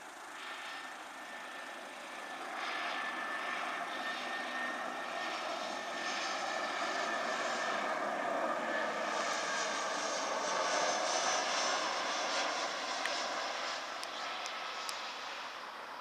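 Jet engines of an easyJet Airbus airliner on final approach with its landing gear down, passing low overhead: a steady rushing rumble with a high whine. It grows louder from a couple of seconds in, is loudest past the middle, then fades over the last few seconds.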